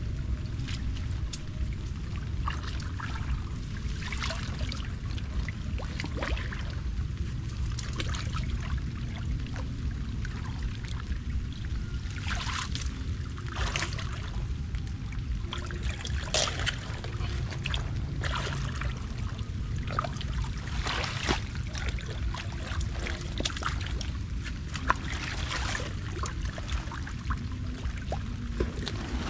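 Shallow water in a muddy ditch splashing and trickling, with irregular splashes every second or so over a steady low rumble.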